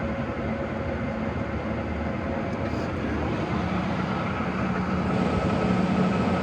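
Monarch engine lathe running under power, its geared headstock giving a steady mechanical hum with a whine that grows stronger about halfway through.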